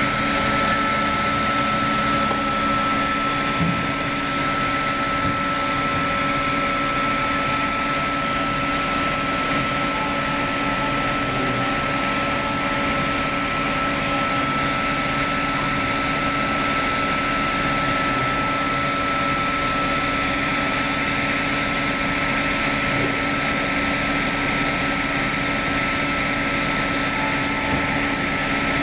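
Log-sawing machine with a circular saw blade running steadily, a constant high whine over even machine noise, while a log is fed along its carriage into the blade.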